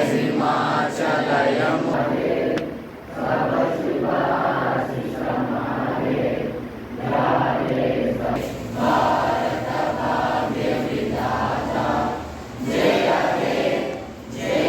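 Many voices in unison, in phrases of a couple of seconds separated by short breaks.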